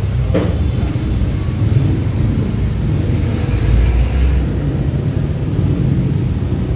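Outdoor street noise: a steady low rumble, with a short click about half a second in.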